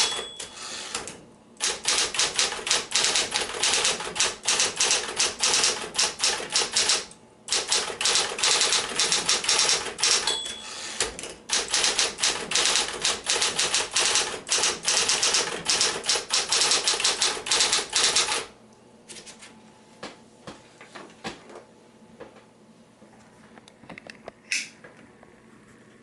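Smith-Corona Coronet Electric 12 electric typewriter typing at speed: a fast clatter of typebars striking, broken twice by a short pause that begins with a brief ringing tone. About 18 seconds in the typing stops, leaving a faint low hum and a few scattered soft clicks.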